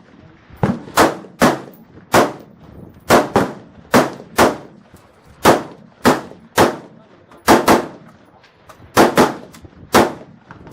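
Gunshots at a shooting range, about sixteen in ten seconds at an irregular pace, some in quick pairs, each sharp crack followed by a short echo.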